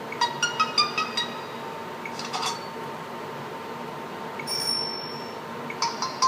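Stock notification tones of a Samsung Galaxy Ace played one after another through the phone's small speaker. A quick run of about six bright chime notes comes in the first second, a short blip a little after two seconds, a held high beep around five seconds, and another quick chime near the end.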